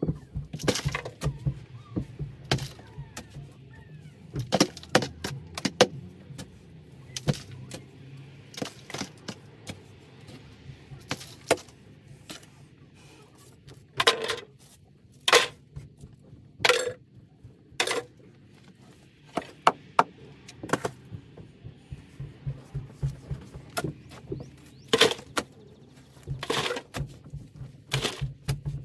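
Short-handled spade digging into packed soil, with irregular sharp chops and scrapes of the blade and the rattle of dirt being thrown aside. The loudest strikes come in clusters about halfway through and again near the end, over a low steady hum.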